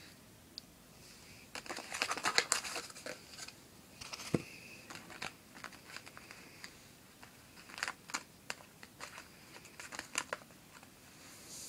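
Paper rustling and light clicks as small modelling-clay pieces are handled and set down on a paper sheet, coming in short clusters, with one sharper knock about four seconds in.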